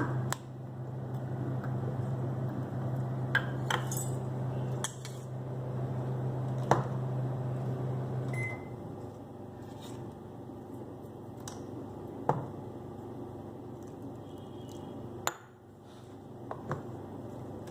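Microwave oven running on high, cooking rava upma, with a steady low hum that cuts off about eight seconds in with a short beep. A few light clicks and knocks follow.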